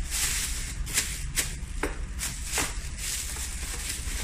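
Clear plastic bag wrapping a new rotary hammer drill crinkling and rustling as hands handle it, with a run of sharp crackles through the middle.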